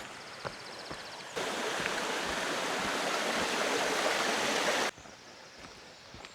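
Rushing stream water, loud and even, that cuts in about a second and a half in and cuts off sharply about three and a half seconds later. Soft footsteps on the path are heard before and after it, with a high rapid bird trill at the start.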